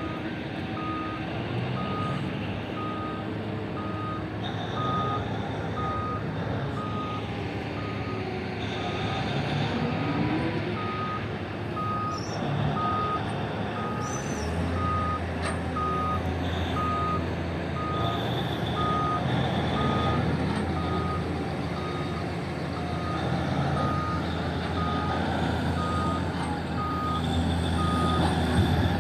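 Reversing alarm on a heavy mining machine, beeping steadily about once a second over the running engine. About halfway through, the engine rumble deepens and grows louder, as if the machine is put under load.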